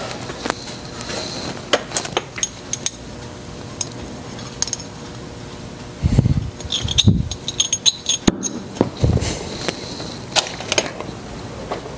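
Small metal parts and hand tools clinking and tapping against each other and the workbench, in scattered sharp clicks, with a run of heavier knocks about halfway through and another a little later.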